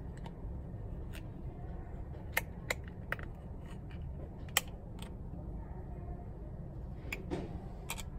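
Scattered sharp clicks and light taps of fingernails on a clear plastic eyelash tray as it is handled and turned, with a short plastic rustle near the end, over a steady low hum.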